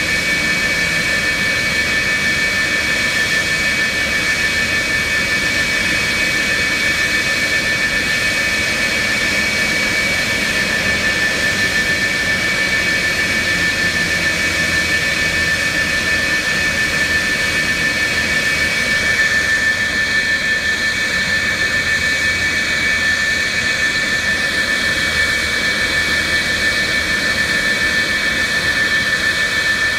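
McDonnell Douglas F-4E Phantom II's twin General Electric J79 turbojets running steadily: a constant jet roar with a high turbine whine made of several steady tones. A further whine tone joins about 19 seconds in.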